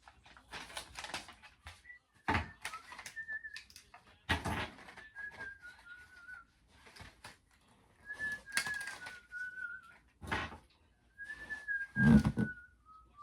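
A person whistling a slow tune in drawn-out, gently falling phrases, over irregular rustling and clattering from handling chair parts during assembly, with a louder knock near the end.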